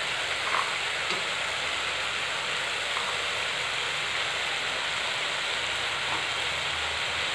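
Oil sizzling steadily in a kadai as onion paste and green peas fry.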